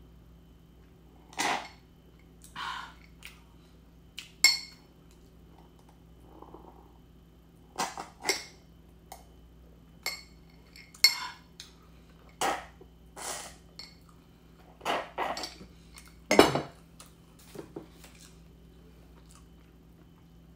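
Glass clinking at close range: ice and a straw rattling in a nearly empty smoothie glass and glasses knocked and set down, in about fifteen sharp clinks, several ringing briefly.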